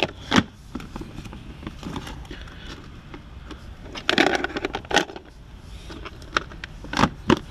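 Cables, plastic plugs and cigarette-lighter adapters rustling and clacking against the inside of a plastic toolbox as they are pushed into place, with a few sharper knocks. A cluster of louder plastic knocks near the end comes as the toolbox lid is shut.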